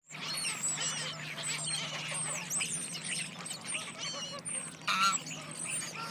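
Mandarin ducks calling: many short, high-pitched calls overlapping without a break, with a louder call about five seconds in. A steady low hum runs underneath.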